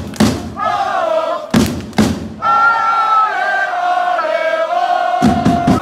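Crowd of football supporters chanting in unison to a big drum struck in pairs of beats. In the middle, the chant holds one long note for about three seconds before the next drum beats.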